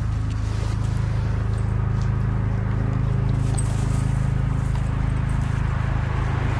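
Helicopter flying overhead: a steady low rotor drone with a fast, even chop, growing slightly louder.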